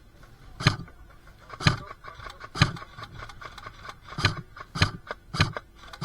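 Airsoft rifle firing single shots, six sharp cracks at uneven intervals of about a second, coming faster near the end.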